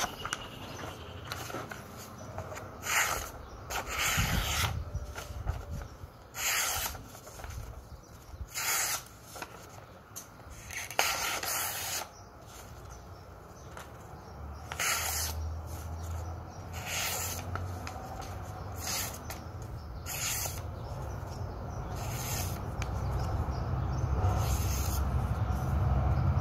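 A handmade coreadeira knife's sharp blade slicing through a sheet of paper in about a dozen short rasping strokes, a second or two apart: a sharpness test. A low rumble builds toward the end.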